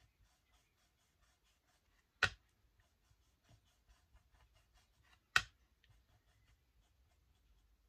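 Quiet sounds of painting with a small brush: faint, fairly even tapping about four to five times a second, with two sharp clicks about three seconds apart, the first a little over two seconds in.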